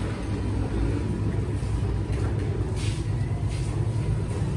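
Steady low rumble of street traffic, with motorbikes passing close by.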